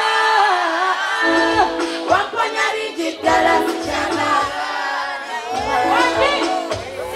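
Live amplified music: a female singer singing over a backing track with a bass beat.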